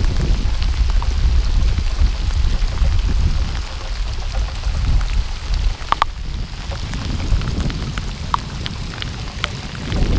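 Rain falling on the sea and the outrigger boat, an even hiss with scattered sharp ticks of drops striking the camera, over a heavy low rumble of wind on the microphone.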